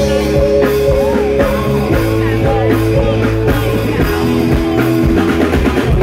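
Live band music played loud over a PA: a drum kit keeping a steady beat under guitar and held notes.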